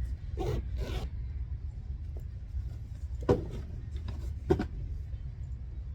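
Gear being handled: two short rasping swishes, zip-like, in the first second, then two sharp knocks about a second apart, over a steady low rumble.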